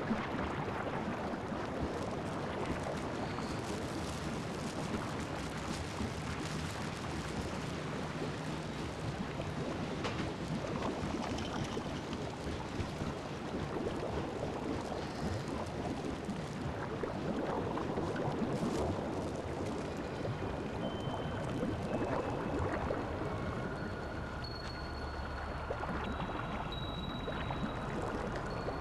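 Steady sloshing, watery noise of laundromat front-loading washing machines running, with the crinkle of a plastic bag being handled. A few thin high tones come in during the last third.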